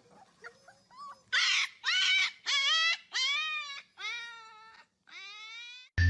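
Dog whining and crying: a few faint whimpers, then six loud, drawn-out cries, each rising in pitch, about one every 0.7 seconds, fading toward the end.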